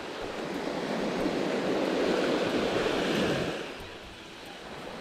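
A small wave breaking and washing up a gravel beach, swelling for about three seconds and then fading as it draws back.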